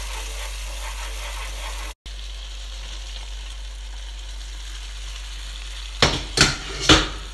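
Curry sauce with soy cream sizzling steadily in a frying pan while it is stirred, cutting out for a moment about two seconds in. Near the end, three loud knocks as the cooked brown rice is added to the pan.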